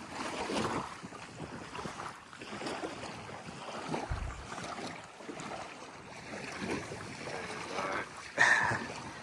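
Wind rushing on the microphone over lapping water, with a short low thump about four seconds in and a brief louder sound near the end.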